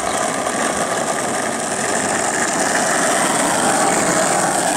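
Skateboard wheels rolling down a rough asphalt street: a steady gritty rumble that grows a little louder as the board picks up speed.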